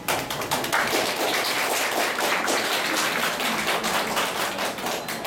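A small audience clapping, starting all at once and thinning out near the end.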